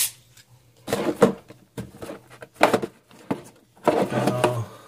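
A cardboard blaster box of hockey cards being opened and handled: a few short, sharp handling noises, with a man's voice starting near the end.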